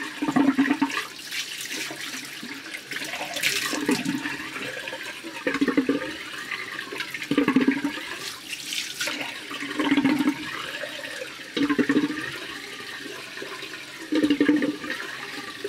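A sink tap running steadily while water is splashed onto the face by hand again and again, a splash every second or two.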